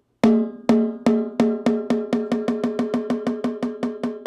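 Snare drum played with a stick while the other stick presses into the head to bend its pitch, a glissando. The strokes start slow and speed up to about four a second, each with a ringing drum tone.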